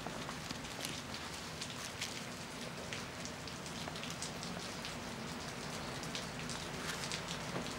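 Steady rain, an even hiss dotted with irregular drip and drop ticks, over a faint steady low hum.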